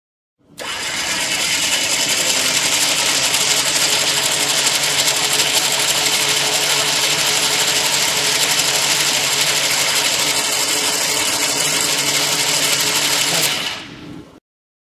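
NSR Red Winch Atom, a 12-volt electric side-by-side winch, running at speed with its motor and gearing whining steadily as the drum turns the rope. It runs for about 13 seconds, then winds down and stops near the end.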